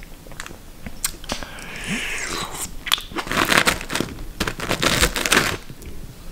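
Close-up mouth sounds of chewing a bite of chicken shashlik. From about three seconds in comes a couple of seconds of dense scraping and rustling as a metal fork digs into fries in a foam takeaway tray.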